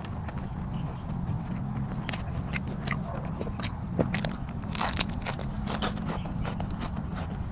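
Close-up eating sounds: a mouthful of fresh green herbs bitten into and chewed, with crisp wet clicks and crunches that begin about two seconds in and peak just before five seconds, over a steady low rumble.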